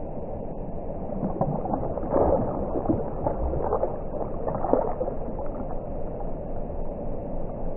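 Shallow pond water stirred by a young largemouth bass lunging at minnows, played back at one-eighth speed: a deep, drawn-out gurgling and sloshing. It swells louder about two, three and four and a half seconds in.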